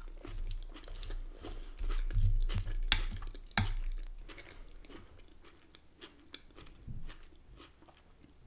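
Close-up chewing of a mouthful of salad, rice and chicken, with irregular crunches of lettuce and cucumber, loudest between about two and four seconds in.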